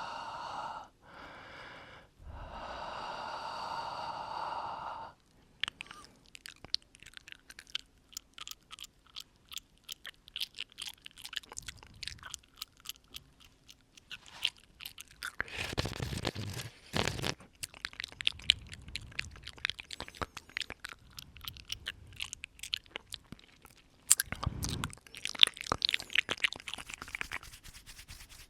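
Close-up ASMR mouth sounds. Two breathy exhales onto the microphone over the first five seconds give way to a long run of rapid wet mouth clicks and smacks, and two more breaths swell up among the clicks.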